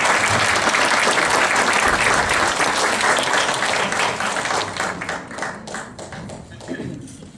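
Audience applauding, the applause thinning to scattered separate claps and fading over the last couple of seconds.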